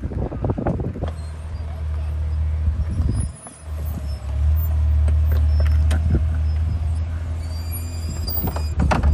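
Low, steady rumble of a vehicle on the move, dropping out briefly about three seconds in, with a few faint clicks and knocks over it.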